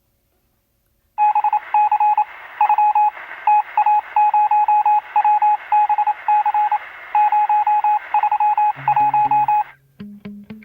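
Morse-code-style beeping, a single steady tone keyed in quick short and longer pulses over radio static, starting about a second in. Near the end bass and plucked guitar notes come in as the music begins.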